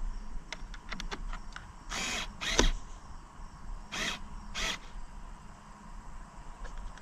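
Hand-tool work on a trolling motor's steering mechanism: a quick run of small metal clicks, then four short rasping bursts in two pairs, the second burst the loudest.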